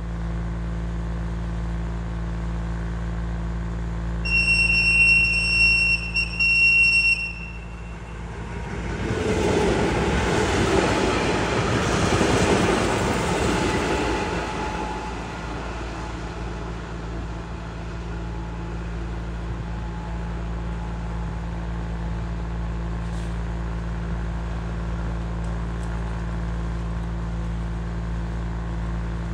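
Class 460 'Tornádo' electric multiple unit passing by: a rush of train noise swells about nine seconds in and fades over some six seconds. Before it comes a loud high-pitched tone lasting about three seconds, broken by short gaps, and a steady low hum runs underneath throughout.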